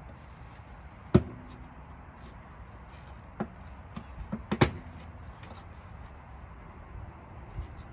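A few sharp plastic knocks and clicks from a Tesla Model S aero wheel cover being pried off and handled: one hard knock with a short ring about a second in, a lighter click later, then a quick cluster of knocks about halfway through.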